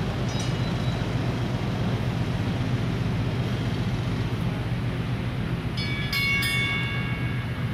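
Steady low rumble of the Panama Canal lock's electric towing locomotives and the ship. About six seconds in, a short, high metallic ringing of several tones opens with a few sharp clicks and lasts about a second.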